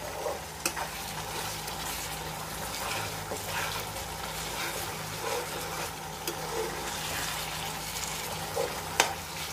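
A metal spatula stirring and scraping thick beetroot halwa in a nonstick pan over a low, steady sizzle, with a few sharp clicks of the spatula against the pan, the sharpest near the end. The halwa is thickening and is being kept moving so it does not catch on the bottom.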